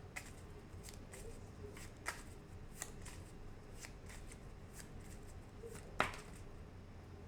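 Tarot cards being shuffled and handled: a faint run of light card flicks and taps, with one louder click about six seconds in.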